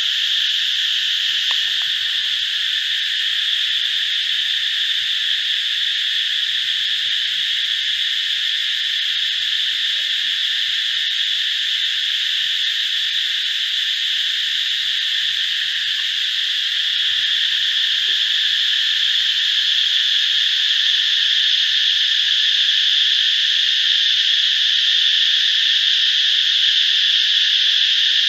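Dense, unbroken chorus of insects: a steady high-pitched drone with no pauses or pulses, growing slightly louder about two-thirds of the way through.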